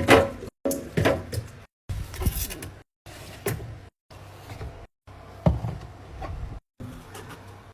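Plastic fridge bins, containers and drawers being set down, slid and opened, giving clunks, knocks and sliding rubs. The sound comes in short clips of about a second each, broken by abrupt silences.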